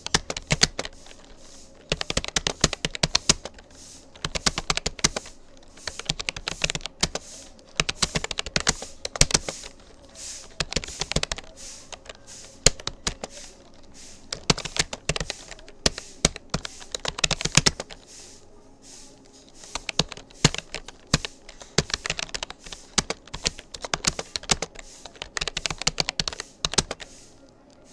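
Typing on a Rapoo computer keyboard: rapid runs of key clicks with short gaps between them, at a touch-typing pace of about 39 words per minute, with a slightly longer pause about two-thirds of the way through.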